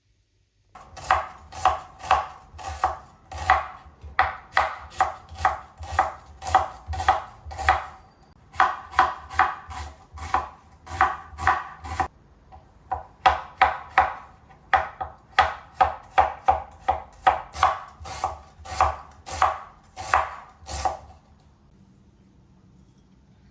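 Kitchen knife chopping on a cutting board in steady, even strokes, about two to three a second. There is a brief pause about eight seconds in and another about twelve seconds in, and the chopping stops a couple of seconds before the end.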